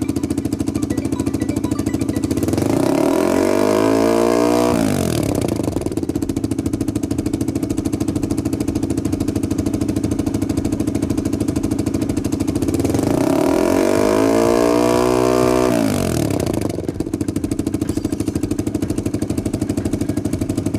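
Engine exhaust idling steadily through a mechanical variable exhaust valve, revved up twice, each rev rising and falling back to idle over about two seconds.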